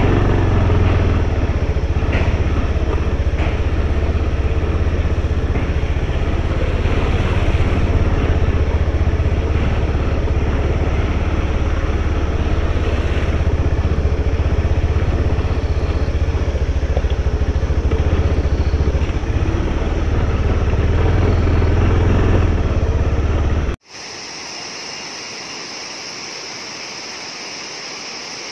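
Motorcycle running at low speed on a rough gravel road, a steady low rumble. About 24 seconds in it cuts off abruptly to the quieter, even hiss of a tall waterfall.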